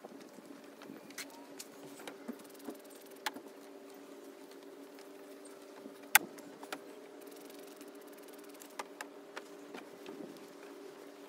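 A steady low hum with scattered sharp clicks and light taps, the loudest about six seconds in, from a spray bottle and microfiber towel being handled while a car hood is wiped down.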